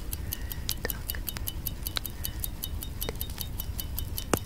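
Clock tick-tock sound effect: fast, even, high ticks about five a second, with a few louder, sharper clicks mixed in.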